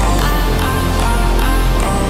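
Loud music in a heavy rock style.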